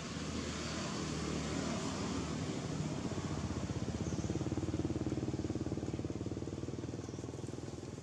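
A passing motor vehicle's engine running, growing louder to a peak about halfway through and then fading.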